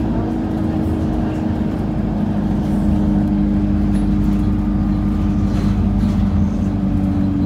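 Bus engine and road noise heard from inside the passenger cabin: a steady low drone with a constant hum.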